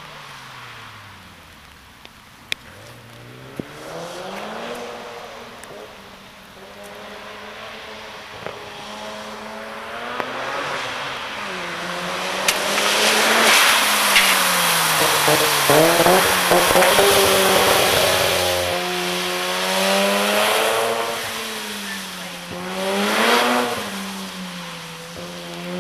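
Mazda RX-7 FD's 13B-REW rotary engine being driven hard, its pitch climbing and dropping again and again as it revs up and backs off. It is loudest for several seconds in the middle.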